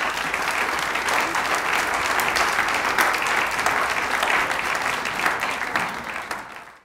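Audience applauding, a dense steady clapping that fades away near the end and then cuts off.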